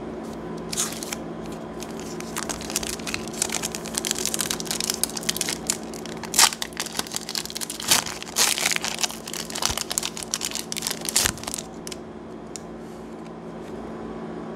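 A Pokémon booster pack's foil wrapper being torn open and crinkled by hand: a run of sharp crackling tears and rustles lasting about ten seconds, loudest in the middle, then dying away.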